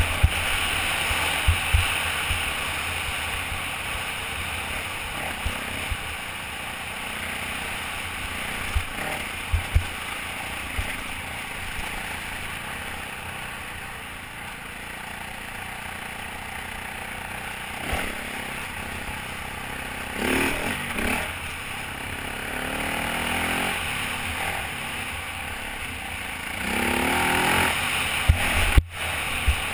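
Off-road motorcycle ridden over a rocky dirt trail, heard from a helmet-mounted camera: the engine runs under throttle beneath a steady rush of noise, with scattered sharp knocks. The revs rise and fall about two-thirds of the way through and again near the end.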